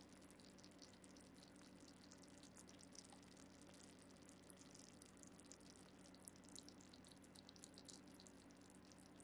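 Faint, scattered crackling and popping of juices bubbling in a freshly baked vegetable ratatouille, over a low steady hum.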